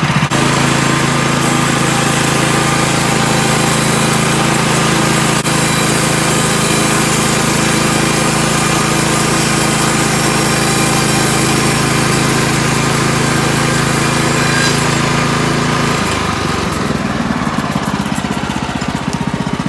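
Woodland Mills HM126 band sawmill's gas engine running at speed with the band blade engaged, a loud steady engine note under a dense whirring hiss from the blade. About sixteen seconds in, the engine drops back toward idle and the blade noise dies down.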